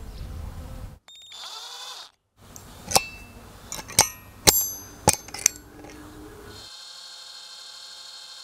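A hammer tapping a steel centre punch into a thin brass blank resting on stone: five sharp metallic taps, each ringing briefly. About a second after the last tap a small electric drill starts and runs steadily as it bores the brass.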